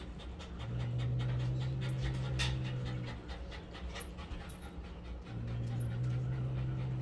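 A dog panting rapidly in a fast, even rhythm. A low steady droning tone comes in twice for about two and a half seconds each, first about half a second in and again past the five-second mark, and is the loudest thing heard.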